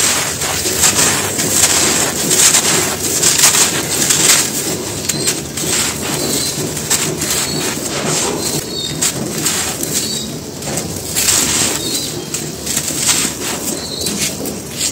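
Hands crumbling dry, dusty cement balls: a continuous dense crunching and crackling as chunks break apart and powder pours back onto the pile. Birds call faintly in the background from about a third of the way in.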